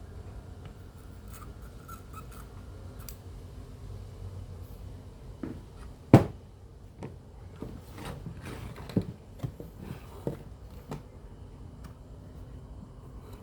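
Scattered clicks and knocks of hands working on a Sony CFS-1110S cassette radio over a faint steady hum. A sharp click a little after six seconds is the loudest, and several more clicks and taps follow over the next five seconds.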